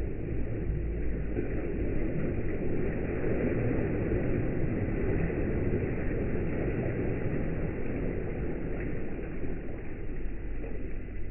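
Waves surging and breaking along a laboratory wave flume: a steady rush of churning water over a low, even rumble, with a faint steady high whine.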